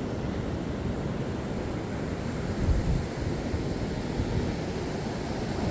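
Sea surf washing in along the shore, with wind rumbling on the microphone.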